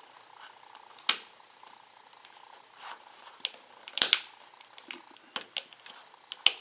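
Sharp little plastic clicks and snaps at irregular intervals from a guitar pick prying at the snap-together plastic case of a SanDisk Sansa Clip MP3 player. The case's retaining clips pop loose and snap back as the pick works along the seam. The loudest is a close pair of clicks about four seconds in.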